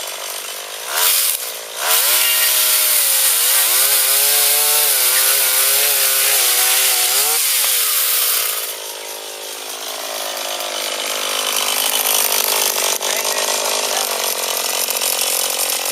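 Small engine of a motorized oil palm cutter revving high, its pitch wavering for about six seconds. It drops back to a lower speed near the middle, then climbs again toward the end.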